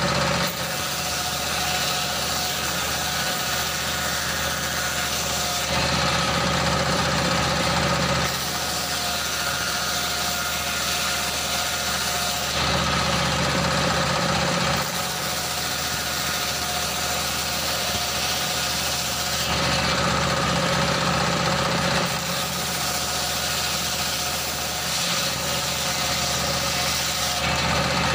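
A stationary single-cylinder engine runs steadily, driving a large circular saw blade that rips wooden planks. A high sawing hiss comes and goes over the engine several times as boards are fed through.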